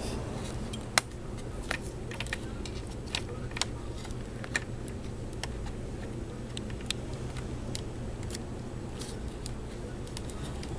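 Irregular small clicks and taps of hands working on a laptop's underside, fitting the Wi-Fi antenna cable connectors to the wireless card. The sharpest click comes about a second in, over a steady low hum.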